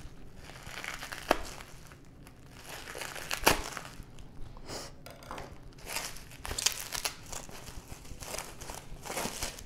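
Plastic bubble wrap crinkling and rustling in bursts as hands pull it open around a hard plastic graded-card slab, with a couple of sharp snaps, the loudest about three and a half seconds in.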